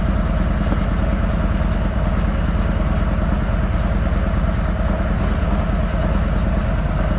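Harley-Davidson bagger's V-twin engine idling steadily, its firing pulses running on without change.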